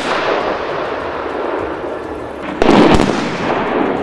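Aerial bomb explosions on a ground target: the rumble of one blast dying away, then a second sudden, loud explosion about two and a half seconds in, followed by its own rumble.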